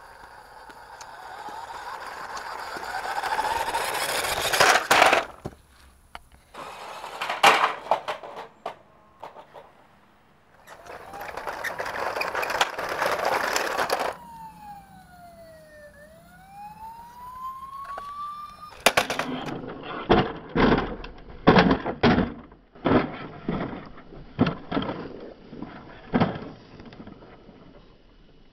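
Electric RC monster truck running, its motor whine rising as it speeds up, then a few sharp knocks and rattles. About halfway through a toy police car's siren wails once, falling and then rising in pitch. After that comes a quick run of knocks and clatters as the RC truck bounces over rough ground.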